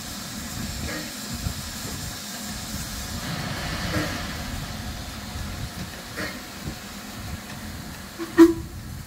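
Standing steam locomotive hissing steam from around its cylinders, over a steady low rumble. A short, loud sound stands out near the end.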